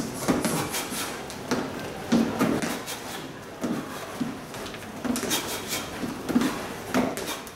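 Boxing shoes stepping on and off a plastic aerobic step platform and onto a rubber gym floor during a footwork drill: dull, irregular thuds about every half second, with scuffing strokes between them.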